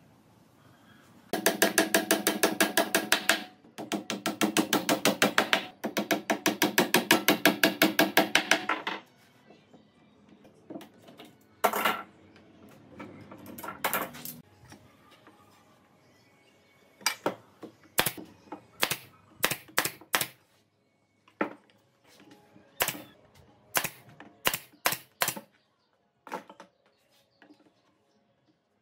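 A hand tool working on a pine frame: three bursts of rapid, evenly spaced mechanical clicking with a hum, each a couple of seconds long. After that come scattered single sharp clicks and knocks of tools and clamps being handled on the workbench.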